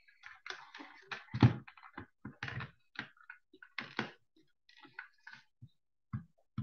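Irregular clicks, knocks and scuffing of equipment being handled and adjusted, with one heavier thump about one and a half seconds in.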